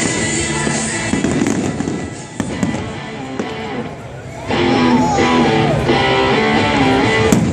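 Music playing, getting louder about halfway through, with fireworks bursting over it and one sharp bang near the end.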